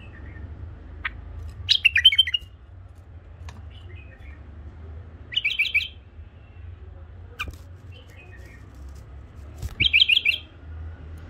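A caged white-eared bulbul singing three short phrases of quick, rapid notes, about four seconds apart, with a few soft short calls and faint clicks in between.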